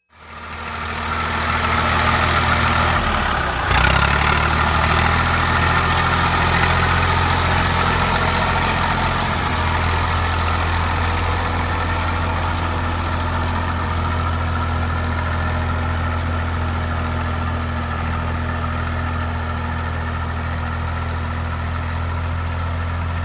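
IMT 542 tractor's diesel engine running steadily, with a brief dip in engine speed about four seconds in.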